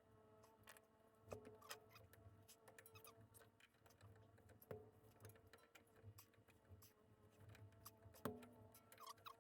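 Faint, scattered clicks and taps of small metal brake parts being handled as the parking brake mechanism is hooked up on a rear brake caliper, with a few slightly sharper clicks, over a steady faint hum.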